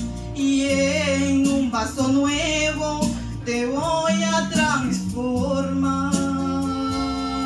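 A woman singing a worship song into a handheld microphone over an instrumental accompaniment, her voice wavering in pitch on drawn-out notes, with one long note held from about two-thirds of the way through.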